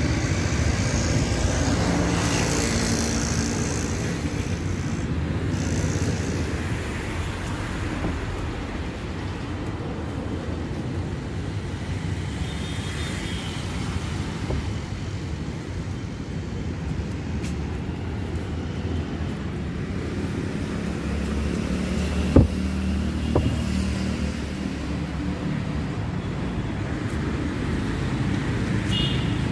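Road traffic: a steady rumble of cars driving past, with a nearer vehicle's engine swelling up a couple of times. A single sharp knock stands out about three-quarters of the way through.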